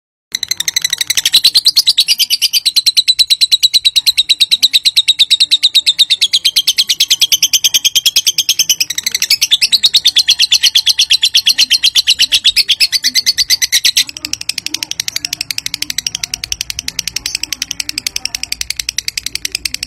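Lovebird 'ngekek panjang': one long, unbroken chattering call of rapid, sharp, high chirps, about six a second. It gets somewhat quieter about two-thirds of the way through. This long chatter is the call that keepers play to set other lovebirds calling back.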